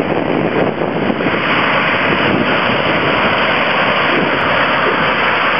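Loud, steady engine noise from a C-130 Hercules's four turboprop engines at takeoff power, with wind buffeting the microphone.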